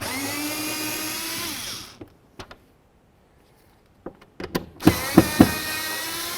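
Power drill with a Phillips bit spinning out two door-handle mounting screws: two runs of a steady motor whine, each about two seconds long, the first winding down just before two seconds in and the second starting about three seconds later. A few sharp clicks come just before and early in the second run.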